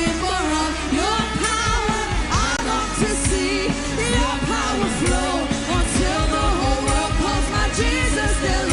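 Live worship band playing, with drums and bass under a singer's voice that carries no clear words.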